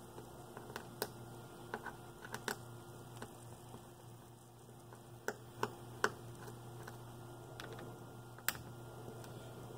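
Light, irregularly spaced clicks and taps of a small Phillips screwdriver on the tiny screws of a smartphone's plastic inner cover as they are backed out, about a dozen in all, over a steady low hum.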